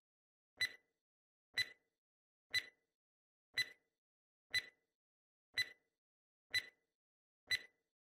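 Countdown-timer tick sound effect, eight short, sharp ticks evenly spaced once a second, marking off the seconds left to answer a quiz question.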